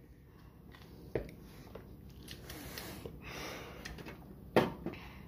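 A knife cutting and working lemons on a board to juice them by hand: scattered soft knocks and scrapes, with a sharper knock about four and a half seconds in.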